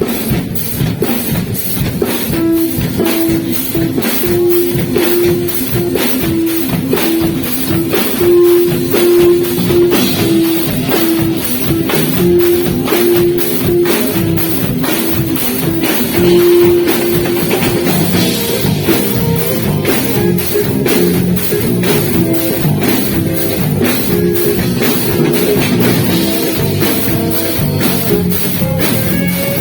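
Live band playing a beiradão medley: a drum kit keeps a steady, busy beat, and a lead melody of long held notes comes in about two seconds in.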